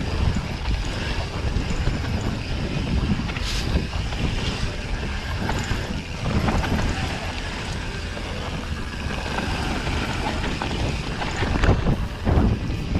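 Wind rushing over the camera microphone as a mountain bike rolls down a loose dirt and rock trail, with the tyres crunching and the bike rattling and knocking over bumps.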